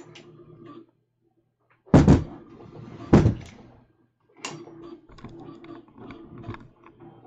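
Two heavy thumps on wood about a second apart, then lighter knocks and rattles: things being handled and set down on a wooden bench or plywood box.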